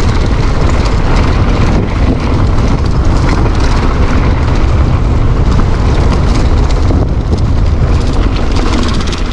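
Loud, steady wind rush on the microphone of a handlebar-mounted camera, with the tyre and trail noise of a mountain bike riding down a dirt trail.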